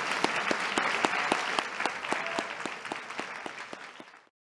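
Audience applauding, dense clapping that fades gradually and then cuts off abruptly a little past four seconds in.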